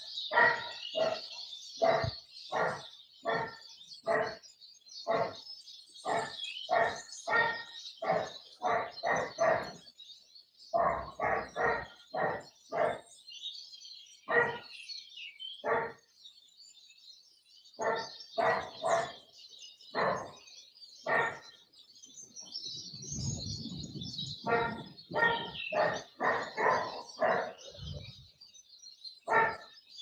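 A dog barking over and over, about two barks a second with a few short pauses, over steady high twittering of small birds. A low rumble rises under it about three-quarters of the way through.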